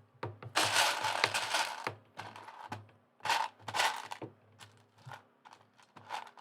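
Loose plastic Lego bricks clattering as a hand rummages through them: a long rattling stir near the start, then a string of shorter clicks and rattles.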